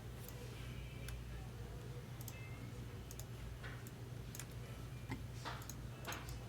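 Scattered clicks of a computer keyboard and mouse over a steady low hum, with two short swishes near the end.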